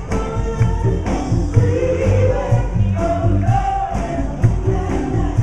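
A band playing a song: singing over a steady drumbeat of about two strokes a second and a heavy bass line.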